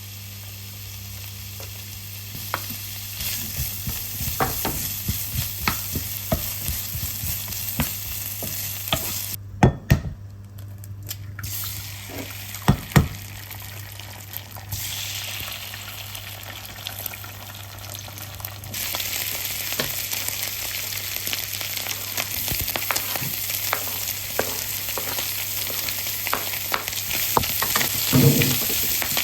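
Food sizzling in a hot frying pan while being stirred, with a utensil repeatedly clicking and knocking against the pan. The sizzle breaks off briefly about ten seconds in and is louder in the second half.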